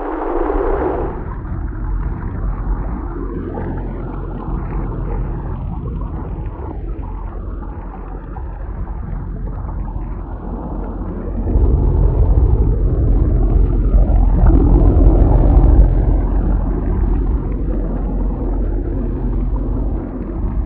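Simulated thunderstorm: a continuous low rolling thunder rumble that swells louder about halfway through and eases off a few seconds later.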